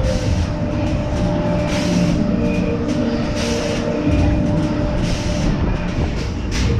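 Fairground ride machinery running: a steady heavy rumble with a constant hum and scattered clicks and rattles.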